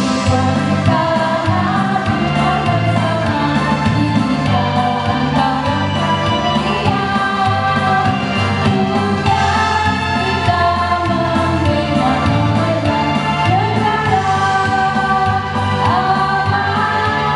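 A group of women singing together into a microphone over instrumental accompaniment with a steady bass line.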